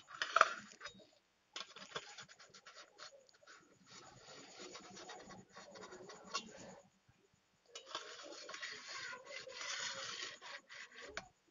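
Metal spatula scraping and rubbing around the rim of a steel plate, loosening a steamed gourd-and-gram-flour cake from it: a run of faint scratchy strokes with a sharper tap at the start and two short pauses.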